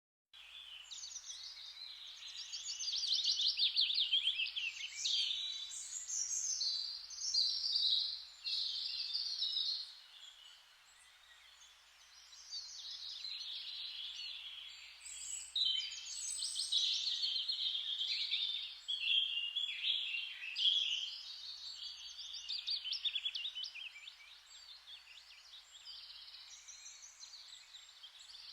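Songbirds singing, one fast trilling phrase after another, with a short lull about ten seconds in.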